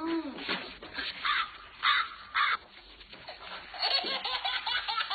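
People laughing: short harsh bursts of laughter, then a longer run of rapid cackling laughter in the second half.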